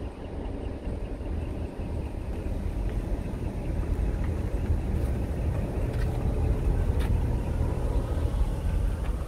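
Wind buffeting the microphone: a steady, uneven low rumble with a faint hiss above it.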